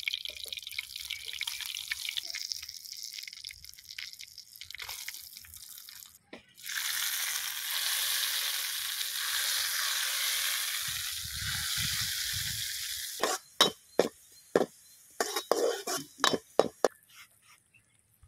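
Tempering for tadka dal: hot oil sizzling with spices in a small pan, then a louder steady sizzle from about six seconds in as the hot oil with fried dried red chillies is poured over cooked moong dal. Near the end come a run of sharp metal clicks and taps as the pan is emptied.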